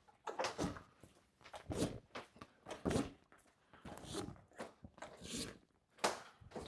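Irregular rustling and light knocks of the bed's fabric and straps being pulled tight on the frame uprights, with a sharper knock about six seconds in.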